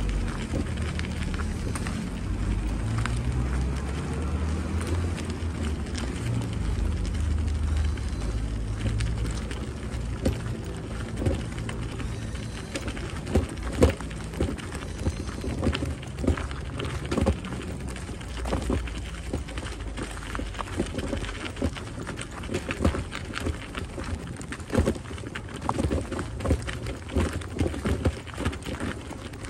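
Footsteps crunching on a gravel path strewn with dry leaves, irregular short crunches at walking pace. A low wind rumble on the microphone is strongest in the first part.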